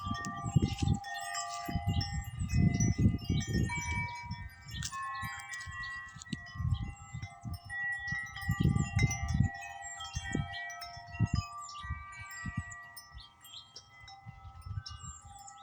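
Metal-tube wind chimes ringing in gusty wind, struck over and over so their tones overlap and ring on. Gusts of wind rumble on the microphone between the strikes.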